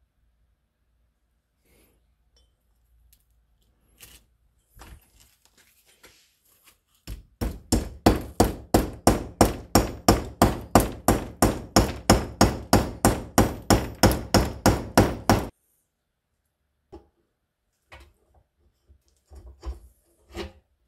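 Hammer driving a ball bearing into a metal pedestal housing of a John Deere 520 pedal tractor, with an even run of sharp blows about three a second for about eight seconds that then stops. A few lighter knocks of parts being handled come before and after.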